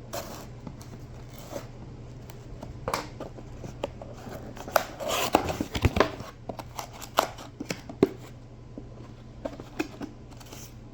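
Packaging of a new set of brake pads being opened by hand: scattered taps, rustles and tearing of box and wrapping, with a busier flurry of handling about five seconds in.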